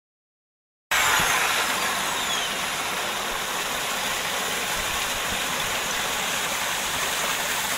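Water spilling over a concrete fishway weir and splashing onto rocks below: a steady rushing noise that starts suddenly about a second in.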